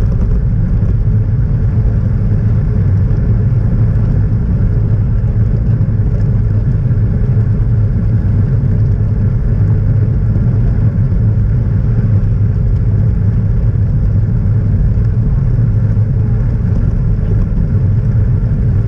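Steady low rumble of wind buffeting the microphone of a camera on a moving road bike, mixed with the rolling noise of bicycle tyres on tarmac.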